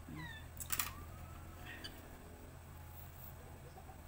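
A cat meows once right at the start, a short call falling in pitch, followed a little under a second in by a loud, sharp clatter of a few quick clicks; fainter calls follow over a steady low hum.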